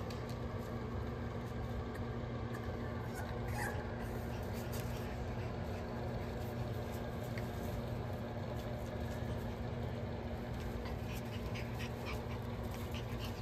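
French bulldog puppies panting and giving a short high whimper about three and a half seconds in, over a steady low hum, with scattered faint ticks of small movements.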